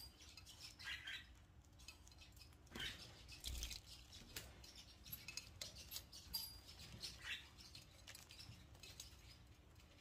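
Near silence, with faint scattered rustles and ticks from a damp, fluffed-up blue parrotlet shifting about on its perch.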